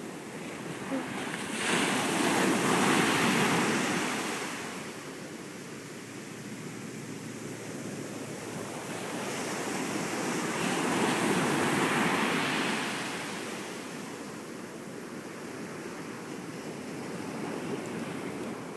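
Ocean surf breaking and washing in over a sandbar, swelling loudly about two seconds in and again around ten seconds in, then settling back to a steady wash.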